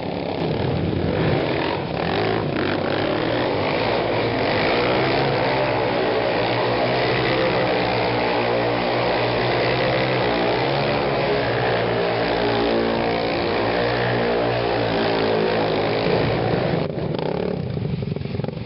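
Engines of two sport quad bikes running and revving during wheelie stunts, the engine pitch rising and falling again and again.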